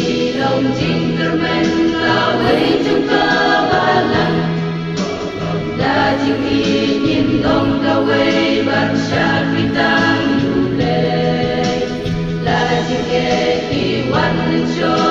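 A mixed choir of men and women singing a Khasi-language hymn together.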